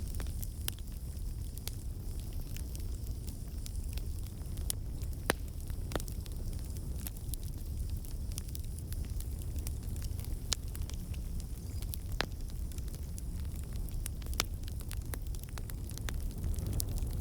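Wood campfire burning: a steady low rumble of flame with scattered sharp pops and crackles.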